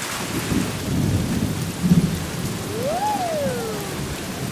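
Storm sound effect: steady heavy rain with low rumbles of thunder, the strongest about two seconds in. Past the middle, a single whistling tone rises and then falls away.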